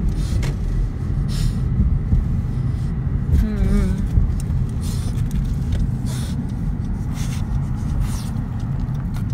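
Inside a moving car: steady low road and engine rumble. About three and a half seconds in comes a brief, wavering, high-pitched whine.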